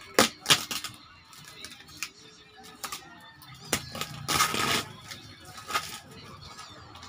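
Packing tape being slit and torn off a cardboard box: a run of short sharp rips and crackles, with one longer tearing rip about four seconds in.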